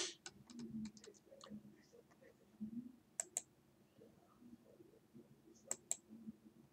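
Quiet, with a series of sharp small clicks: a louder one at the start, then scattered ones, including two quick pairs, over faint low rustling.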